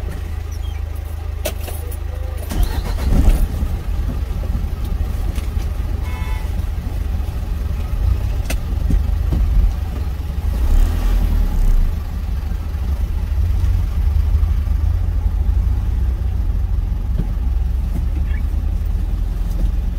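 Truck engine idling, heard from inside the cab as a steady low rumble, with a few clicks and knocks of handling in the cab.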